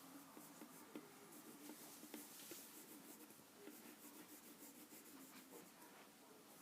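Faint scratching of drawing strokes on paper: many short, quick strokes with a few light ticks.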